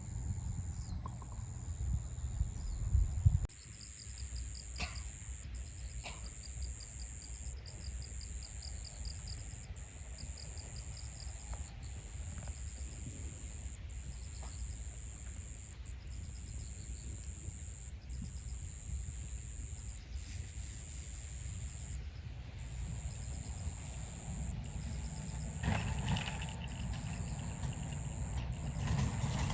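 Outdoor ambience: a steady high insect trill that breaks off and resumes about once a second, with pulsed chirping under it, over low wind rumble.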